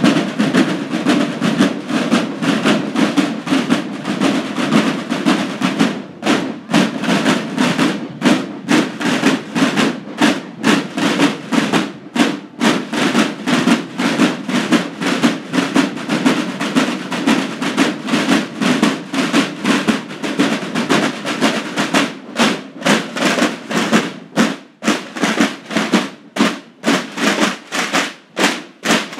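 Drums played in a fast, steady, repeating rhythm.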